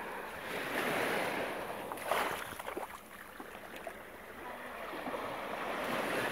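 Small waves washing in and out over sand in the shallows, a hissing rush that swells about a second in and again near the end, with a brief sharper burst of noise about two seconds in.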